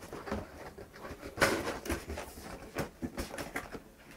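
Cardboard graphics-card box being handled and its lid closed: scattered taps, scrapes and rustles, the loudest about a second and a half in.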